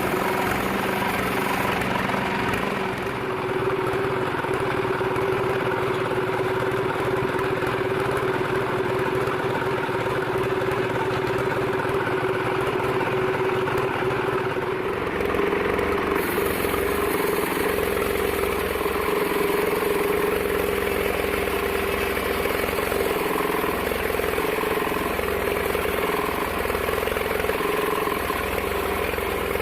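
Large 42-inch sawmill bandsaw running steadily with a constant hum. About sixteen seconds in the sound shifts to a deeper rumble with more hiss.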